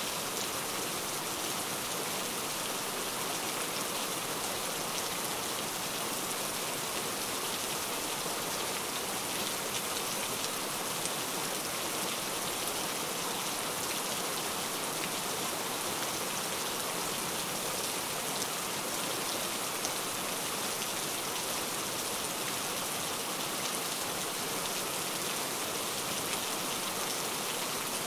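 Steady rain falling: a dense, even hiss peppered with many small drop ticks.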